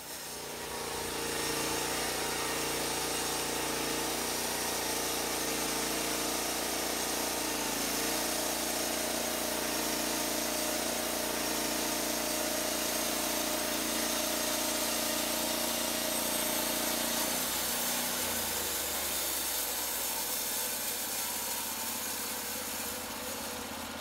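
Norwood LumberPro HD36 portable band sawmill sawing through a log: its gas engine drives the band blade under steady load, with a steady hiss of cutting. About 18 seconds in, the engine's pitch changes and the sound eases slightly as the cut ends.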